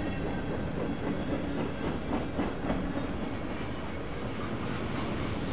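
Freight train's cars rolling past at a grade crossing: a steady rumble of steel wheels on rail, with clicks and clacks over the rail joints, heaviest a couple of seconds in.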